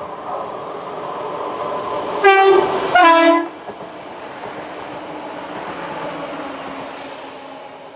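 A GWR passenger train sounds its two-tone horn as it runs through the station: two short blasts about two seconds in, a higher note then a lower one, the loudest sound here. Steady rolling noise of the train passing comes before and after the horn and fades toward the end.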